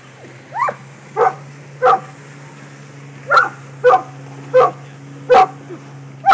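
A dog barking: about eight short, sharp barks, with a pause around two seconds in. A boat engine idles with a low, steady hum underneath.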